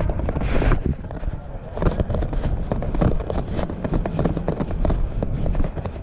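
A walker's footsteps in dry beach sand, with a low rumble of wind on the microphone and a short hiss about half a second in.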